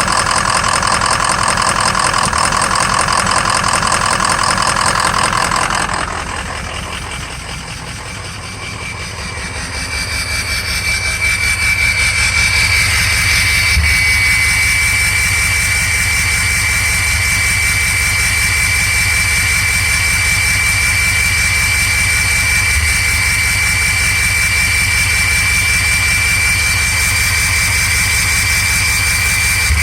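Ford 6.0 V8 turbo-diesel engine idling with an intermittent misfire, which the owner traces to a weak #5 injector. About six seconds in the sound drops and changes, and from about ten seconds a steady high whine rides over the engine's low rumble.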